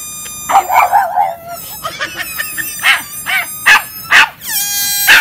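Pug barking: a wavering, whiny yelp about a second in, then about four short, sharp barks. Near the end a steady high whine starts.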